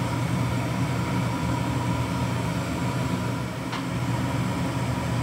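A steady low mechanical hum from a kitchen appliance over a simmering stockpot, with one faint click about three and a half seconds in.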